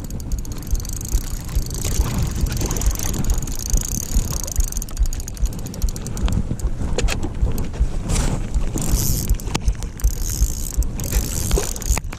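Wind buffeting the microphone with a steady low rumble, over the sounds of a small inflatable boat on the water, with a few sharp clicks and knocks in the second half.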